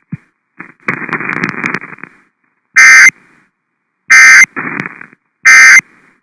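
Three short, loud digital data bursts a little over a second apart: the EAS end-of-message (NNNN) SAME code that closes a relayed National Weather Service severe thunderstorm warning. Patches of radio static hiss come before and between the bursts.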